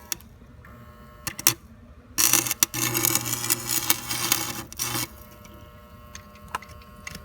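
Electric arc welder striking an arc on a car differential: a couple of short crackling pops, then the arc burning with a steady crackle and hum for about three seconds as a bead is laid to weld the differential gears locked.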